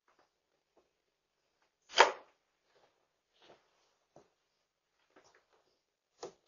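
A door shutting with one loud bump about two seconds in, then scattered light knocks and clicks of footsteps on a wooden porch deck.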